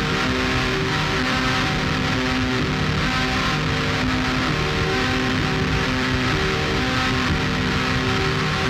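Dark ambient rock music: a dense, distorted wall of sound with long held notes that shift every second or two.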